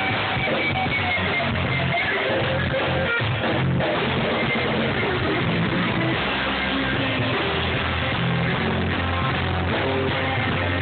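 Live band playing: electric guitar, electric bass and drum kit, loud and steady.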